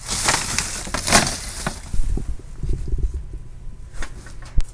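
Thin plastic shopping bag rustling and crinkling as it is handled, for about the first two seconds, followed by low knocks and bumps of items being moved about.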